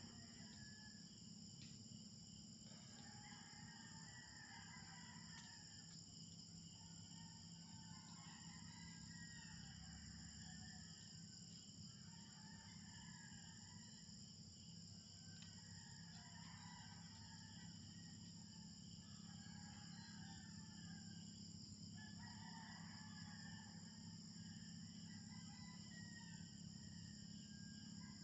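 Faint evening chorus of insects trilling steadily at several high pitches, with a lower animal call repeating every two seconds or so.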